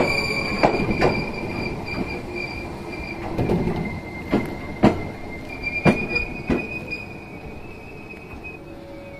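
Izu Kyuko 8000 series electric train with Hitachi-made equipment, heard from inside the car as it slows. A steady high whine runs throughout, motor tones fall at the start, and several sharp wheel knocks come over rail joints. The sound fades toward the end as the train draws toward a stop.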